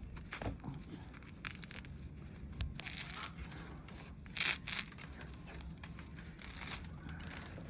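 Rustling and tearing as a mat of sprouted wheat grass is handled and pulled apart, in uneven bursts, the loudest about three and four and a half seconds in.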